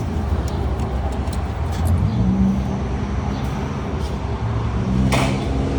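Steady low vehicle rumble, with a single sharp click about five seconds in.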